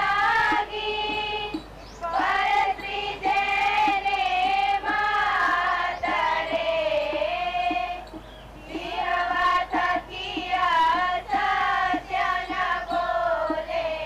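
A group of voices singing a slow melody together, with light regular taps keeping a beat.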